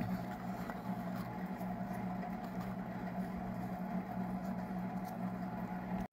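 A steady low machine hum, with a few faint light clicks of small items being handled in a plastic organizer box.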